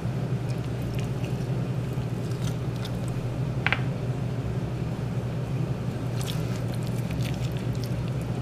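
Faint wet squishing and small ticks of fingers pressing garlic pieces into holes in a raw pork roast, over a steady low hum, with one sharper click a little under four seconds in.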